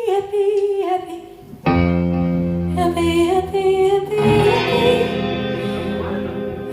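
Live band with a singer during a sound check: sung lines, then a loud held chord comes in about two seconds in and rings on under the voice.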